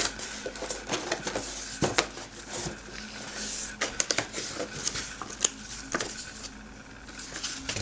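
Hands handling a cardboard box and lifting a magazine out of it: irregular rustling of paper and cardboard with scattered small knocks and clicks, the sharpest about two seconds in.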